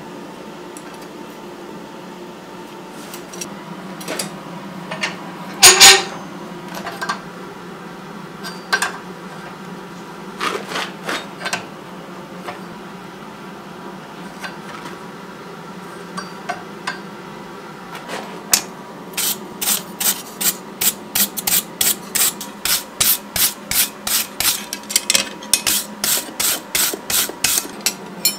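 Scattered metallic clinks and one loud clank of steel tongs and a hot steel bar being bent in a vise. About two-thirds of the way in, a steel wire brush starts scrubbing the forged leaf hook on the anvil in brisk strokes, about two a second.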